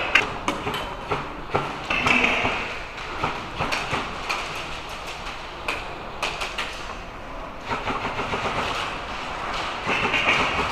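BB guns firing in an indoor arena: sharp single shots and short rapid runs of clicks, irregularly spaced. The room adds echo.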